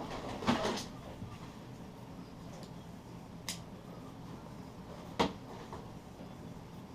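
Packaging being handled while unboxing an RC truck: a brief rustle in the first second, then two sharp clicks or knocks, one about three and a half seconds in and a louder one about five seconds in.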